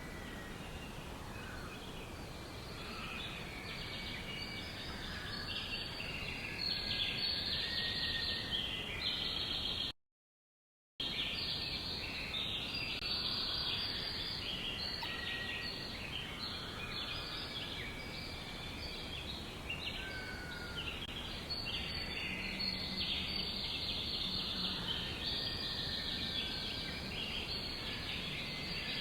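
Many songbirds chirping and trilling at once in a dense chorus. It cuts out to silence for about a second, about ten seconds in, then resumes.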